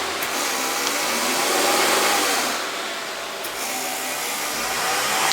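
2024 Toyota GR86's 2.4-litre flat-four running at light, held revs around 2,500 rpm, drifting gently up and down as the revs are set to match the dyno's rpm reading. A steady rush of air runs underneath.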